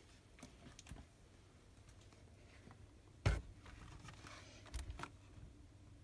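Quiet room with a low steady hum and a few faint clicks and knocks. One sharper knock comes a little over three seconds in.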